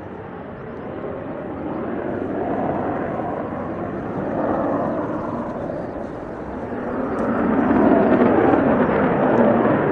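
Jet noise from a Mitsubishi F-2 fighter's single turbofan engine as it turns overhead: a rushing roar that swells and eases in waves and grows louder toward the end. The engine is throttled back for a simulated-flameout approach.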